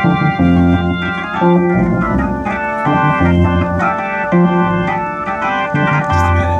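Electronic keyboard played live, organ-like sustained chords over a low bass line that steps to a new note every second or so.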